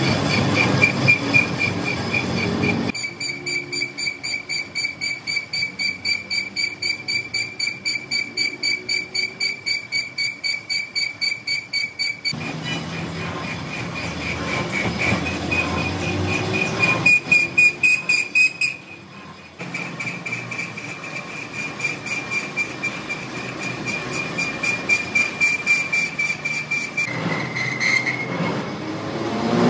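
A machine's steady high-pitched whine, pulsing rhythmically about four times a second for long stretches, with the sound changing abruptly several times.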